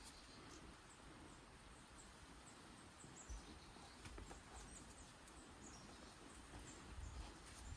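Near silence: faint outdoor ambience with a low rumble and a few faint, brief high chirps scattered through it.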